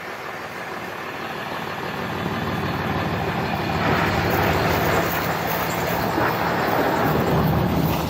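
A motor vehicle's engine running with a noisy rumble that grows louder over the first few seconds and then holds steady.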